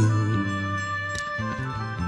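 Soundtrack music with sustained tones and a soft chiming note about a second in.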